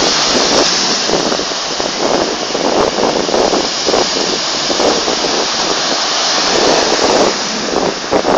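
Surf washing in on a sandy beach with wind buffeting the microphone: a loud, steady rush with irregular gusty surges.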